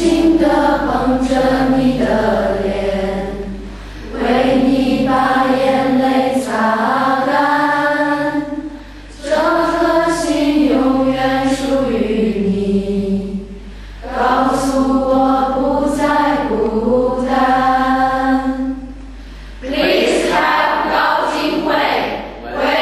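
A group of voices singing a slow song together, in long held phrases of about four seconds each with short breaks between them.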